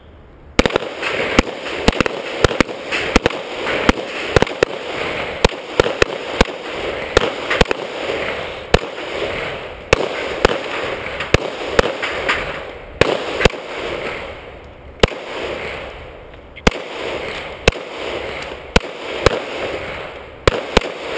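Rapid handgun fire from several shooters at once in a bowling-pin shoot: dozens of shots at irregular, often overlapping intervals, starting within the first second.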